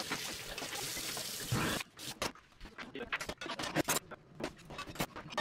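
Kitchen faucet running into a stainless sink while dishes are rinsed, shutting off after about two seconds. Scattered clinks and knocks of dishes and the dishwasher rack follow.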